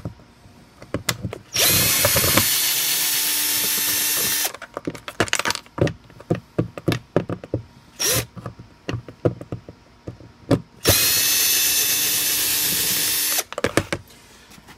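Power drill-driver running twice, about three seconds each, the first about two seconds in and the second near eleven seconds, backing out two door-panel screws. Short clicks and knocks of handling fall between the runs.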